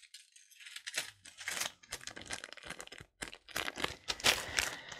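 Small plastic jewelry bags being handled and crinkled, in irregular bursts of rustling starting about a second in.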